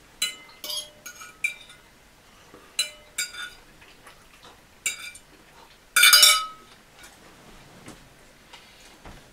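Metal fork clinking and scraping against a ceramic plate: a string of short clinks in the first five seconds, a longer, louder one about six seconds in, then a few faint taps.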